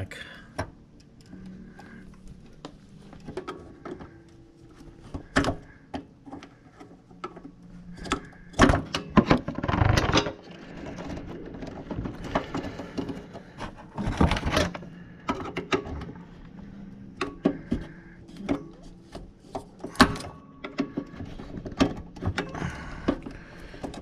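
Scattered clicks, knocks and rubbing from fingers working at the tight push-on wire connectors of a refrigerator compressor's start relay, with a few louder clatters.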